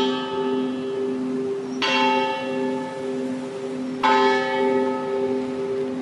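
The steamboat Delta Queen's bell, made by the Kaye Co. of Louisville, rung with slow single strokes about two seconds apart. Each stroke rings out and dies away, and a low hum carries on between strokes.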